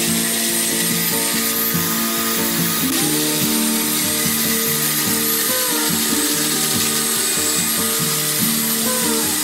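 Background music over the steady high whine of an angle grinder cutting into the wood of a log.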